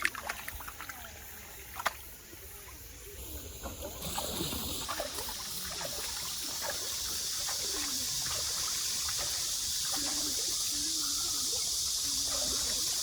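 Mountain stream water running over rocks. The rushing comes in about four seconds in and grows slowly louder.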